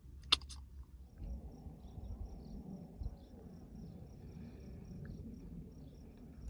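Crickets chirping in quick, evenly repeating high pulses over a low rumble, with one sharp click just after the start.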